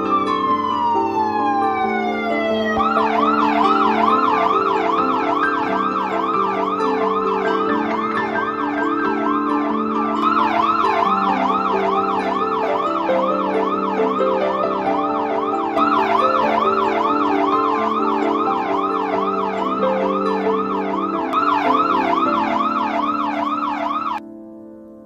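Police siren: one falling wail, then a fast up-and-down yelp about two to three times a second that cuts off suddenly near the end, over background music with held notes.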